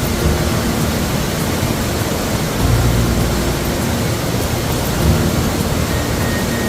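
Mountain stream water rushing, a loud steady wash of noise.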